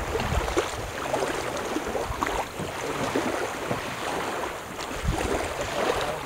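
Small waves lapping and splashing in shallow water, a steady crackly wash, with light wind on the microphone.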